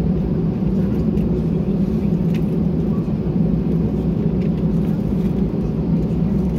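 Airbus A320-200 taxiing, heard from inside the cabin: a steady low rumble from the engines and airframe that holds an even level throughout.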